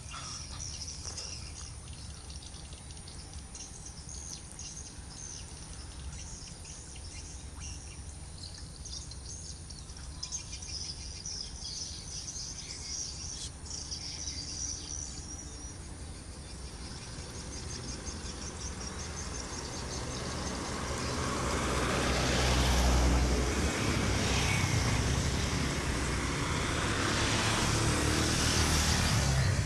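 Outdoor background of birds chirping and insects buzzing. From about twenty seconds in, the low rumble of an approaching vehicle grows steadily louder.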